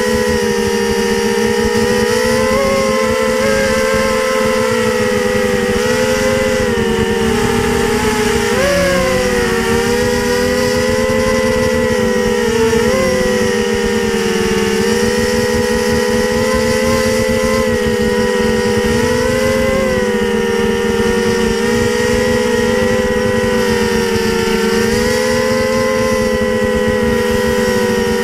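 Small FPV quadcopter's electric motors and propellers whining steadily as it flies. The pitch dips and rises with the throttle, with a quick swing about nine seconds in and another about thirteen seconds in.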